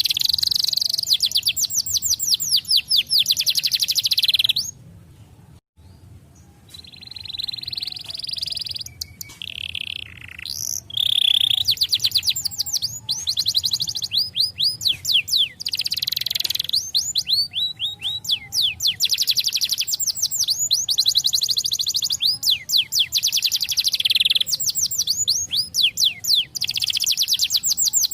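Canary singing: long, fast trills of repeated downward-sweeping notes, with a short break about five seconds in before the trills pick up again.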